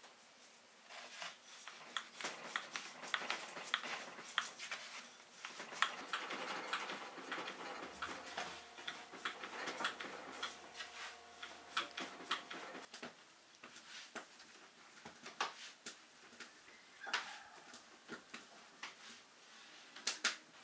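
Light, irregular taps and knocks of hands and a long wooden rolling pin working flatbread dough on a wooden board. A faint steady hum runs for a few seconds in the middle.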